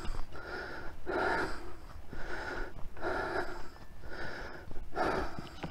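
A man breathing hard through his mouth while hiking, a loud breath about once a second in a steady rhythm: the breathing of exertion on the trail.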